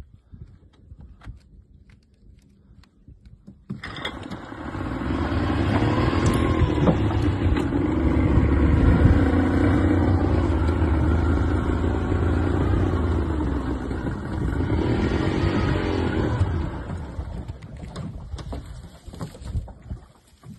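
Boat outboard motor starting abruptly about four seconds in, then running under throttle with its pitch rising and falling. It eases off and dies down near the end.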